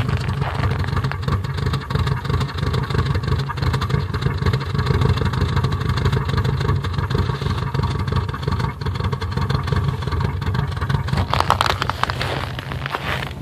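2002 Subaru Impreza WRX's turbocharged 2.0-litre flat-four idling with an uneven, fluctuating beat: the rough idle and misfire the owner is trying to track down.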